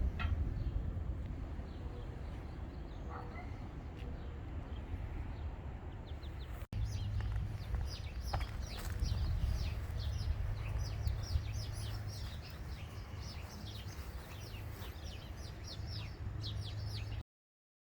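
Birds chirping, many short high chirps in quick succession from about seven seconds in, over a steady low rumble; the sound cuts off abruptly near the end.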